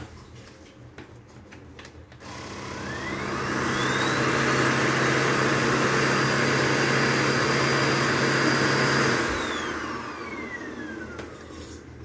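Xiaomi Mijia dust mite vacuum cleaner switched on: its motor spins up with a rising whine over about two seconds, runs steadily with a low hum, then is switched off about nine seconds in and winds down with a falling whine. A few light handling clicks come before it starts.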